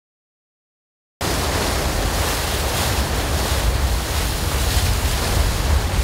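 Silence, then about a second in a sudden steady rush of seawater churning along a ship's hull as the bow cuts through open ocean, with wind over it and a heavy low rumble.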